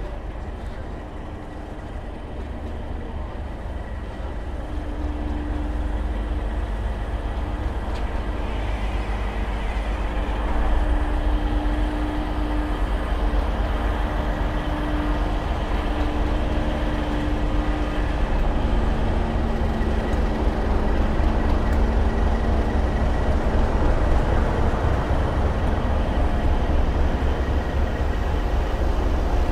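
Class 37 diesel locomotive's English Electric V12 engine idling with a deep, steady rumble, growing louder over the first ten seconds or so as it is approached and then holding.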